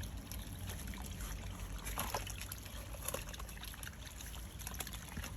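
Backed-up sewage water trickling and splashing out of an opened sewer cleanout pipe as the house's drain line empties, a sign that the clog lies further down the line toward the street.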